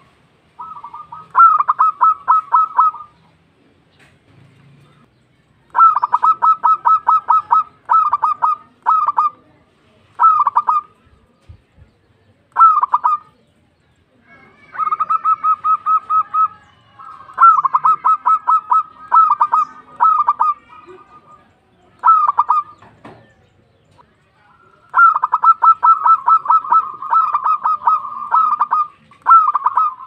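Zebra dove (perkutut) singing: phrases of rapid staccato cooing notes, repeated again and again with short pauses between them.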